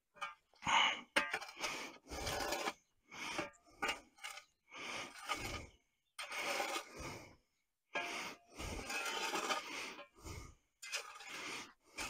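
Shovel scraping and scooping through dry concrete mix, in a run of short strokes about a second long with brief pauses between, some ending in a dull thud.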